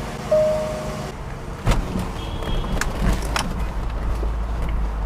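Sounds of a Land Rover being readied to drive, heard from inside: a short electronic beep, then a few sharp clicks and knocks, and a low steady rumble from about three seconds in as the engine runs.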